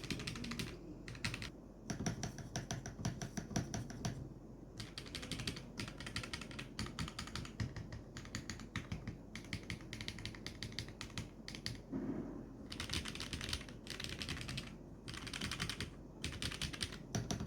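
Typing on an Akko MU01 mechanical keyboard with HMX Xinhai switches in a wooden case with no foam: a fast run of keystroke clicks in bursts, with brief pauses between them.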